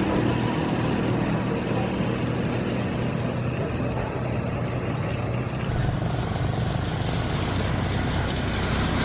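A motor vehicle's engine running steadily with a low hum. About six seconds in, the hum gets deeper and louder.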